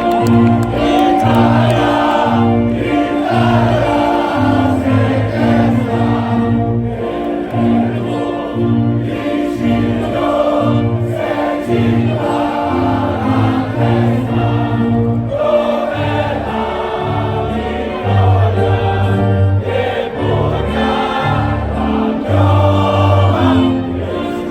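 A national anthem played over loudspeakers: orchestral music with a choir of voices singing, a steady pulsing beat underneath.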